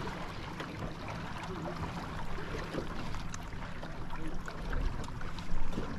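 Small waves lapping against an aluminium boat hull, with wind rumbling on the microphone that gusts louder near the end.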